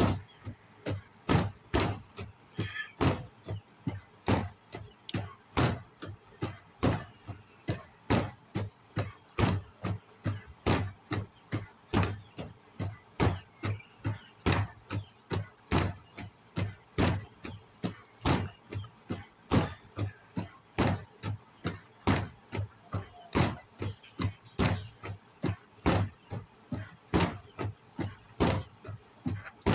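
A heavy steel mace swung over and over, giving a regular sharp sound about twice a second, some strokes much louder than others.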